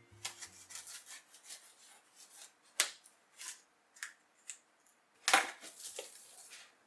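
Keyboard packaging being handled during unboxing: scattered rubbing, tapping and clicking, with a sharp click near three seconds and a louder rustling scrape a little after five seconds.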